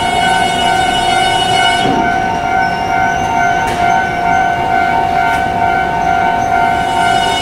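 A steady electronic warning tone of several pitches sounds without a break, over the low rumble of a 383 series electric train rolling slowly along the platform. There is a brief low thump about two seconds in.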